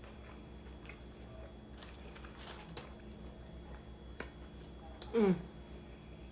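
Close-up eating sounds: soft chewing and mouth noises with a few light clicks, over a steady low hum. A little after five seconds in comes one short vocal "mm" falling in pitch.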